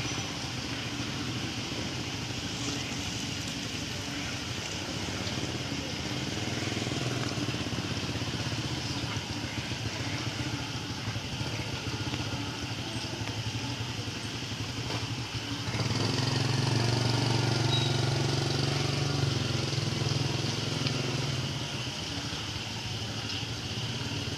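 Heavy rain falling on a street as a steady hiss. About two-thirds of the way through, a motor vehicle's engine hum rises over the rain for several seconds, then fades.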